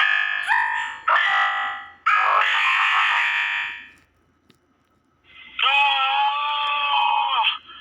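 Loud drawn-out screaming in several bursts: three harsh cries back to back, a pause of about a second, then one long held scream of about two seconds.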